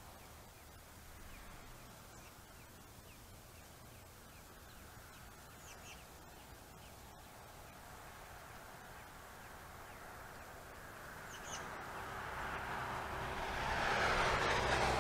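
Quiet outdoor background with a few faint, short bird chirps. Near the end a broad rushing noise with a low rumble swells up and becomes the loudest sound.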